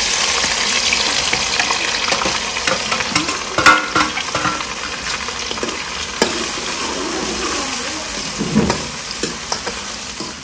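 Chopped onions and green chillies dropped into hot mustard oil in a steel kadhai, sizzling loudly at once and slowly dying down as the tadka starts to fry. A steel ladle scrapes and clinks against the pan as they are stirred, with a sharp clink about three and a half seconds in.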